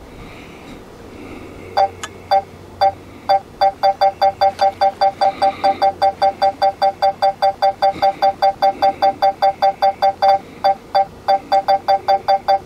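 Drone remote controller sounding a warning alarm: a loud run of short two-tone electronic beeps. It starts about two seconds in with a few spaced beeps, then settles into about three or four a second, with a brief break near the end.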